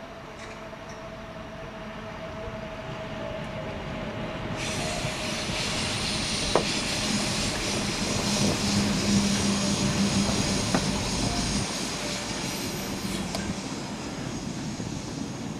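BB 67300 diesel locomotive passing with a short train of ballast hopper wagons: engine and wheels rumbling on the rails, growing louder as the wagons go by, with a couple of sharp knocks, then easing off as the train moves away.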